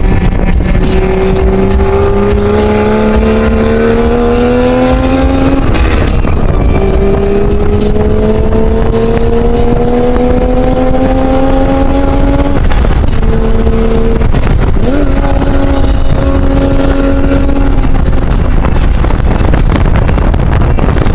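A 2000 Toyota Camry Solara's engine heard from inside the cabin under hard acceleration: its pitch climbs steadily, breaks for an upshift about six seconds in, and climbs again until about twelve seconds. It then drops to steadier, lower notes for a few seconds before sinking under a constant loud rumble of road and wind noise.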